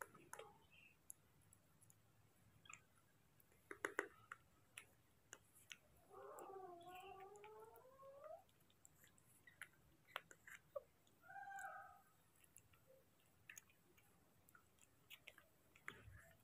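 Baby macaque giving a soft, wavering call of about two seconds about six seconds in, and a shorter call around eleven seconds in, with faint mouth clicks and chewing as it eats.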